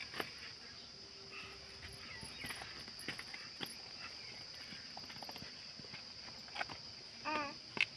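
Steady high-pitched insect drone, with scattered clicks and taps of a metal spoon against a steel pot while rice is served. A short wavering cry near the end.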